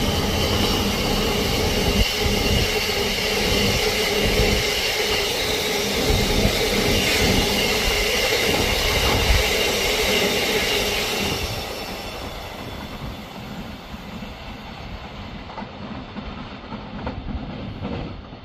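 Freight train of box wagons running past at speed: wheels clattering and rumbling on the rails, with a thin high squeal from the wheels. It fades about twelve seconds in as the last wagon passes and the train draws away.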